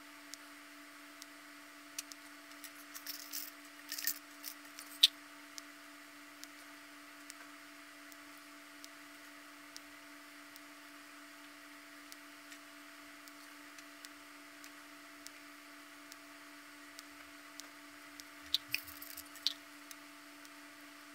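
Small plastic twisty-puzzle parts clicking and tapping as they are handled and fitted together. The clicks are sparse, with a flurry about three to five seconds in, ending in one sharp snap, and another short flurry near the end, over a steady electrical hum.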